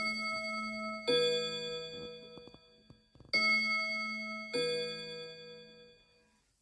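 Tower clock bells chiming: four strikes on two alternating pitches, a ding-dong played twice, each ringing on and fading away.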